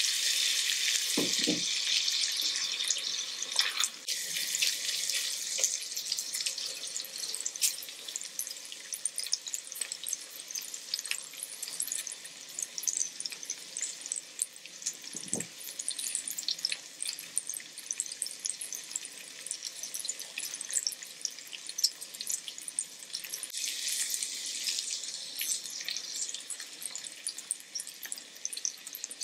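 Beef steaks sizzling on a hot tabletop griddle: a steady hiss with many small crackling pops of fat. The sizzle swells louder in the first few seconds and again about 24 seconds in.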